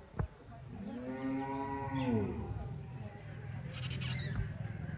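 A cow mooing once: a single drawn-out call about a second in, lasting under two seconds and rising slightly then falling in pitch at its end.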